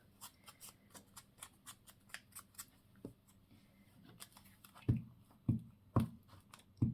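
Small handling sounds of craft materials on a desk: a quick run of light clicks, about four a second, then four soft knocks on the work surface near the end.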